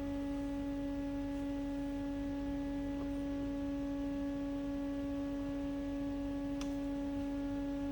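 Steady electrical hum from a powered-up Haas DT1 CNC machine: one low, unchanging tone with fainter higher overtones. A faint click comes near the end.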